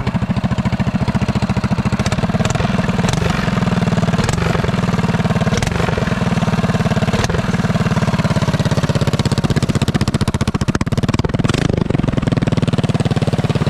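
Predator 212cc single-cylinder four-stroke engine on a mini bike, running steadily at idle with a fast, even pulsing exhaust beat, freshly started.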